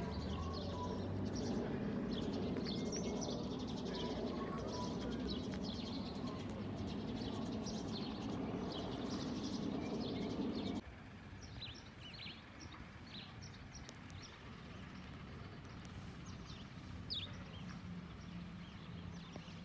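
Birds chirping, short high calls scattered throughout, over a steady low background rumble. About eleven seconds in the rumble cuts off abruptly, leaving quieter chirping.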